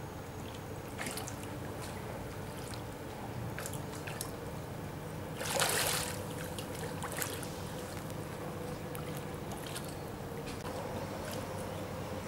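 Shallow river water running over stones, with one short loud splash about five and a half seconds in as a Eurasian otter dives.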